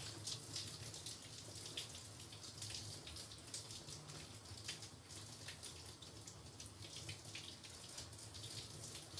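Faint wet crackling and squishing of shampoo lather as hands scrub it through long wet curly hair, with many small irregular crackles.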